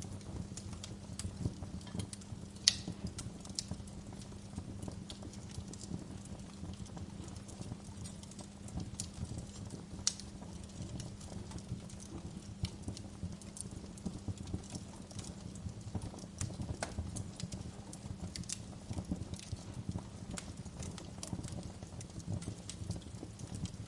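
Wood fire in a fireplace crackling: irregular sharp pops and snaps over a steady low rumble of the flames, with one louder pop a few seconds in.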